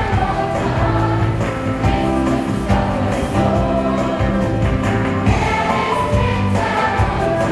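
A song with voices singing over instrumental backing, played continuously.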